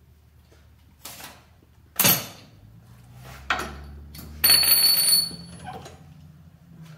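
Metal clanks and knocks as a hydraulic bottle jack is let down under a 1954 Pontiac's front suspension: two sharp knocks in the first two seconds, then a louder scrape with a high squeal about four and a half seconds in.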